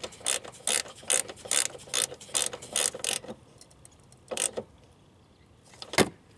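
Hand ratchet clicking rapidly, about four strokes a second, as a nut is run down onto an AC line stud. The clicking stops a little over three seconds in, with one more short burst after it and a single sharp click near the end.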